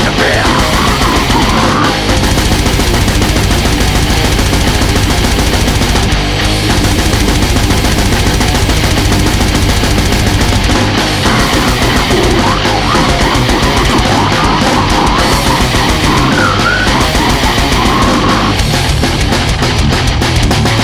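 Loud extreme metal music with heavily distorted guitars over fast, dense drumming.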